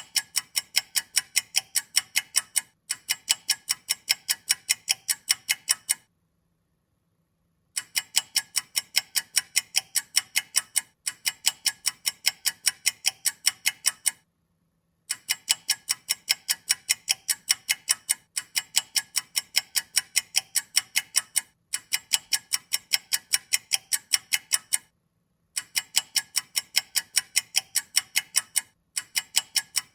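Clock ticking quickly and evenly, about five sharp ticks a second, in runs of a few seconds broken by short silent gaps.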